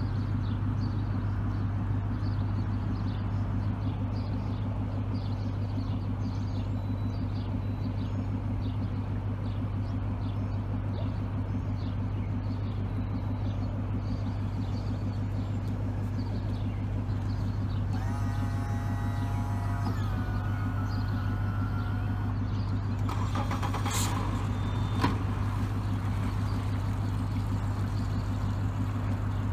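Suzuki outboard motor idling steadily. A short electronic beeping tone comes about eighteen seconds in, and a brief clatter around twenty-four seconds.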